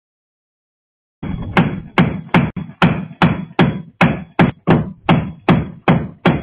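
Sledgehammer blows on a rust-seized hitch ball mount, pounding it out of a corroded, swollen receiver tube: rapid, loud metal-on-metal strikes, about two to three a second, starting about a second in. Heard through a security camera's microphone, thin and lacking highs.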